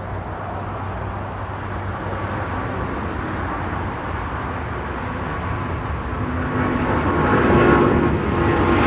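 Jet airliner engine noise: a steady low rumble that grows louder about six seconds in.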